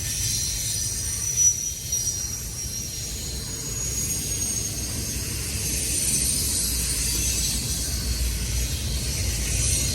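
CN freight train cars rolling past with a steady low rumble, over which thin high-pitched wheel squeal comes and goes.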